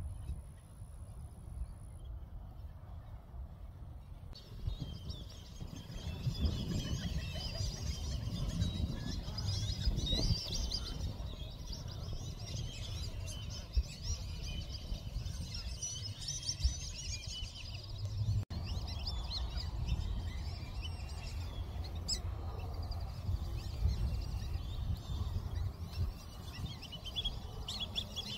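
A chorus of many birds chirping and calling at once, starting abruptly about four seconds in, over a low rumble of wind on the microphone.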